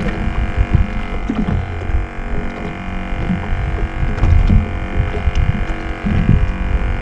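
A steady drone of many held tones, with irregular low thumps and knocks underneath.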